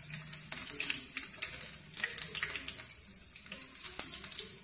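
Crushed garlic frying in hot oil in a nonstick pan: a steady sizzle dotted with many sharp crackles and pops.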